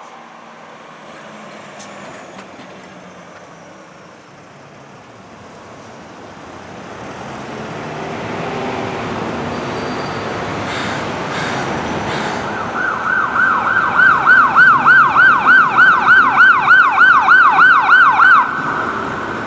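Street traffic and engine noise build up, then an emergency vehicle siren starts about two-thirds of the way in. It plays a fast yelp, about three sweeps a second, and cuts off shortly before the end.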